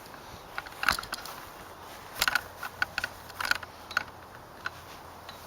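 Scattered sharp mechanical clicks and rattles, about a dozen over a few seconds, from handling the not-yet-started Champion 212cc rototiller. No engine is running.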